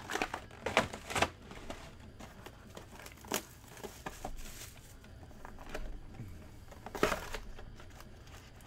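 Crinkling plastic wrap and rustling packaging as sealed trading-card hobby boxes and packs are handled, in a run of short, sharp crackles with the loudest about seven seconds in.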